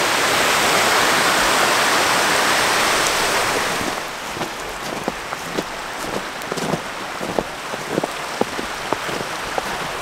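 Steady rush of falling water from a waterfall and creek, dropping to a quieter background about four seconds in, with scattered sharp ticks like drips over the rest.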